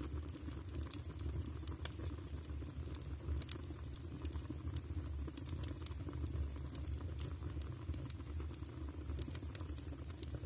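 Firewood crackling in a stove: irregular sharp snaps scattered over a steady low rumble of the burning fire.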